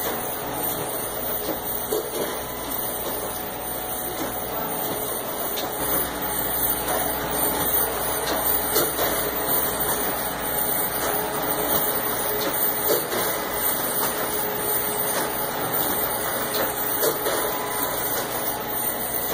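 Espresso Book Machine running: a steady mechanical whir from its printer and binding unit, with many small irregular clicks and ticks.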